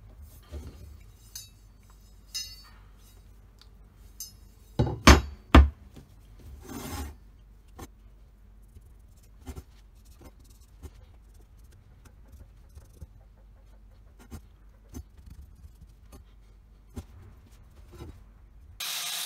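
Steel motorcycle brake rotor handled on a wooden workbench: scattered clinks and scrapes, with two loud knocks about five seconds in and a short rubbing scrape soon after. Music comes in just before the end.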